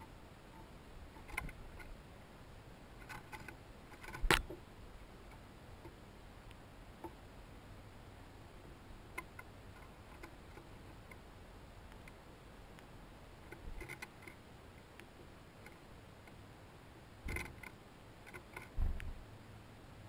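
Scattered light taps and knocks of small songbirds landing and hopping on a wooden feeder rail close to the microphone, over a faint steady hiss. The sharpest knock comes about four seconds in, with a cluster of taps and a duller thump near the end.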